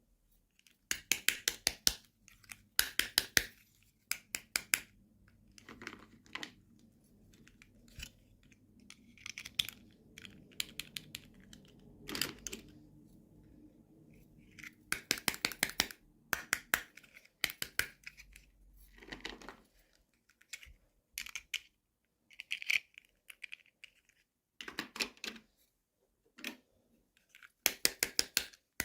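Plastic packaging and small plastic toy parts being handled: bursts of rapid clicking and crinkling, with short pauses between them.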